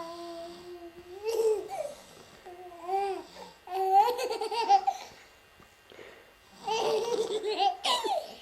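High-pitched female laughter in several shaky bursts with short pauses between them.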